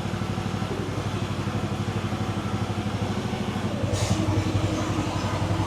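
Small engine of a 1-ton Chinese mini excavator running with an even pulsing beat; a little before four seconds in it grows louder and heavier, as if taking hydraulic load while the arm moves, with a sharp click at that moment.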